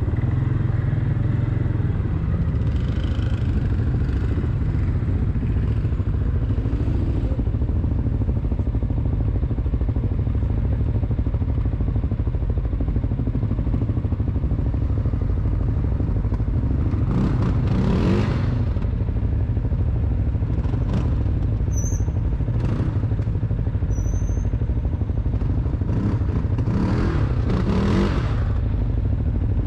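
Quad (ATV) engine running at low speed with a steady drone, revving up and back down twice, about halfway through and again near the end.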